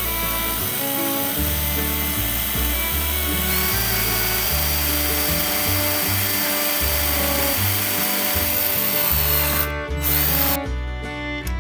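DeWalt 20V cordless drill boring through a thin aluminium bracket into a wood backing block, running steadily and stopping near the end. Background music plays throughout.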